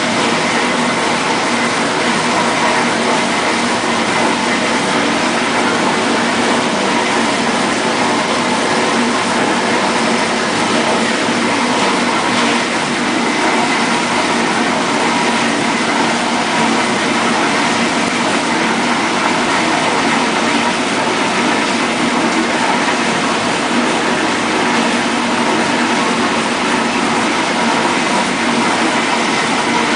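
1958 GE MobileMaid portable dishwasher running its wash cycle: a steady rush of water spraying inside the tub, with the motor's even hum underneath.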